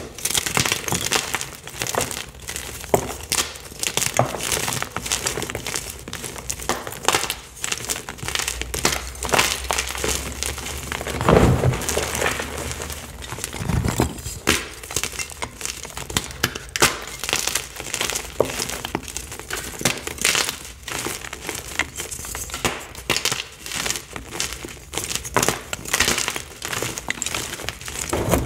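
Picsil magnesium chalk blocks being crushed and crumbled between the fingers: a dense, continuous crunching and crackling of brittle chalk breaking into pieces and powder, with one heavier, deeper crunch about eleven seconds in.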